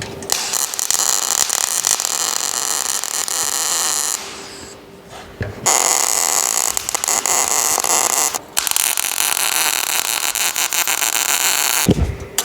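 Electric welding crackle: a dense, high-pitched sputter that stops about 4 s in, starts again a second and a half later, and breaks off briefly once more, as a welding repair is made on the washing-machine tub's broken bracket.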